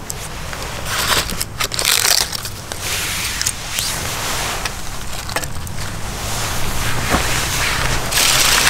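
Dry leaves and sticks crunching and snapping as they are handled in a smoky campfire that is slow to catch, over a steady hiss that grows louder near the end.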